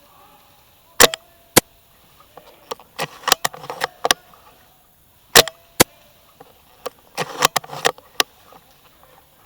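SSG10 spring bolt-action airsoft sniper rifle in use: two sharp snaps about a second in, then a quick run of clicks and rattles, and the same again, a pair of snaps and a run of clicks, from about five seconds in.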